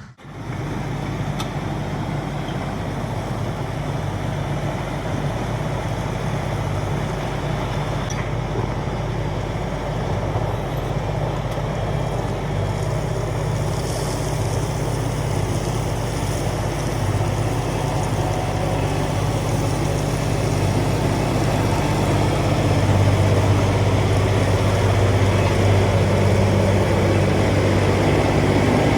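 LS MT357 tractor's diesel engine running steadily under work, growing a little louder in the last several seconds.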